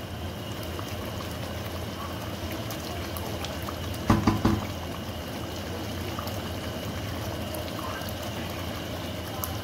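Liver masala curry with milk bubbling and sizzling steadily as it simmers in a nonstick pan, being cooked down until the milk dries off. About four seconds in comes a short cluster of knocks from the wooden spatula against the pan.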